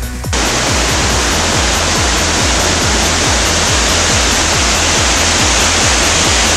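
A waterfall's white water rushing down rock ledges, a loud steady rush that cuts in suddenly a moment in. Background electronic music with a steady bass beat plays underneath.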